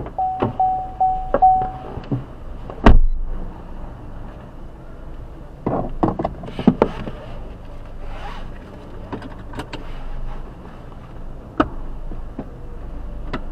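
Four short beeps from the car, then a loud single slam about three seconds in as the rear hatch shuts. A few seconds later a cluster of knocks as the driver's door opens and closes with him climbing in, followed by scattered clicks.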